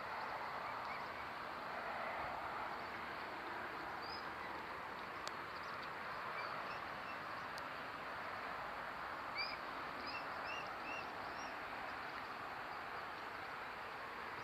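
Steady outdoor background hiss with a few short bird chirps: a single chirp about four seconds in, then a quick run of about six short rising chirps near the middle.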